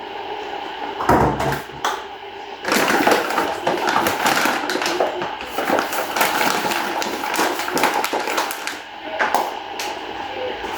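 Kitchen clatter: a knock with a low thud, then several seconds of dense clicking, knocking and scraping of utensils and cookware.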